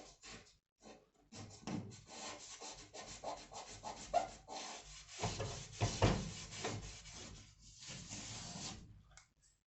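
Rough scraping and rubbing in irregular strokes, growing denser and louder about halfway through, then stopping shortly before the end.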